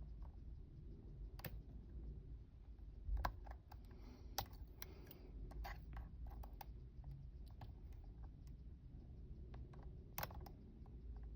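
Irregular small metallic clicks and ticks of a lock pick and tension tool working the pins of a five-pin Union mortise cylinder, with a few sharper clicks about three, four and a half and ten seconds in, over a low steady hum.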